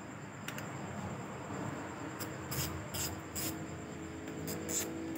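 Spinning fishing reel being cranked by hand, giving a low steady whir from its gears and rotor. Several short rubbing clicks from handling the reel are heard through the middle.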